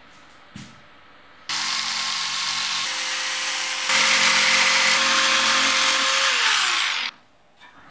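Electric jigsaw starting up and sawing along the edge of a laminate floor plank, trimming the tongue off a first-row plank. It gets louder partway through, then winds down and stops about a second before the end.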